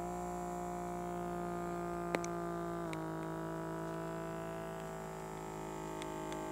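Small electric air pump of a Gamma automatic blood pressure monitor running with a steady buzz as it inflates the arm cuff. It comes up to speed at the start and drops slightly in pitch about three seconds in. The freshly patched cuff is holding air, with the pressure climbing.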